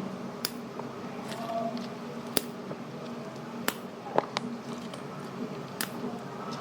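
Chili peppers being sliced with a knife: a handful of sharp, irregularly spaced cutting taps over a low room hum, the loudest a little past four seconds in.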